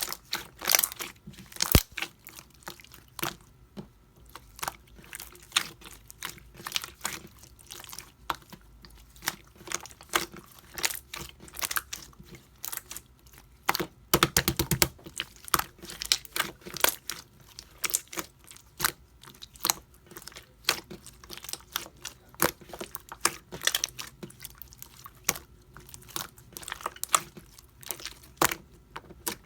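Pink jelly-textured slime being squished and pressed by hand, giving irregular sticky clicks and pops, with a fast run of crackling pops about halfway through.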